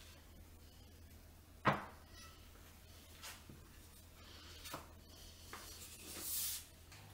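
Faint kitchen handling sounds over a low steady hum: one sharp knock about a second and a half in, a few lighter taps, and a short scraping rustle near the end.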